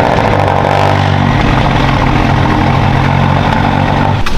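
McLaren twin-turbo V8 running just after a cold start with a loud clacking noise, which the specialist takes as the sign of a bad cam phaser nine times out of ten.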